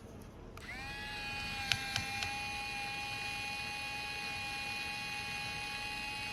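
A small electric motor whining: it spins up about half a second in and then runs at a steady high pitch, with a few sharp clicks in the second second.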